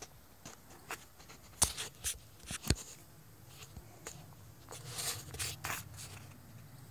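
A string of irregular light clicks and crunches, with a denser cluster about five seconds in.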